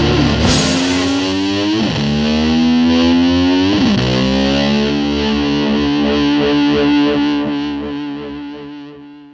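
Distorted electric guitar music: a held note with two quick sliding pitch swoops, then a long final note that fades out near the end.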